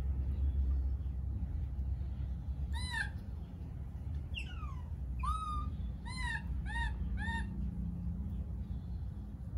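Baby macaque giving a run of about six short, high-pitched arched coos, one of them a falling glide, starting about three seconds in, over a low steady rumble.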